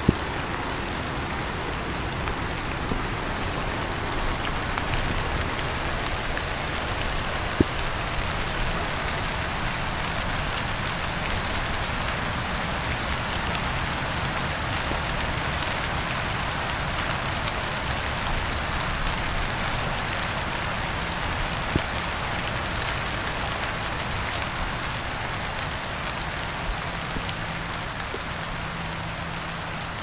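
Rain falling on water, a steady hiss with a few sharper drop clicks. A cricket chirps steadily in the background, about two chirps a second.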